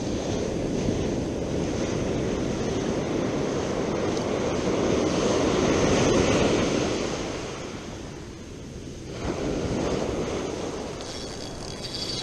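Ocean surf washing up a sandy beach. The rush swells to its loudest about six seconds in, eases, then comes back.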